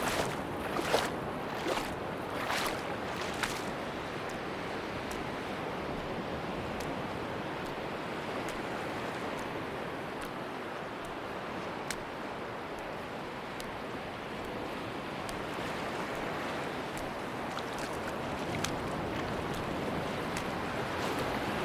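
Sea surf washing on a beach: a steady wash of waves, with a few short sharp clicks in the first few seconds and again near the end.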